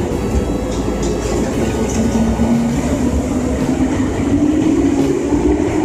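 A JR 185 series electric train accelerating out of the station, its cars rolling past with a low rumble. A whine rises slowly in pitch as it gathers speed.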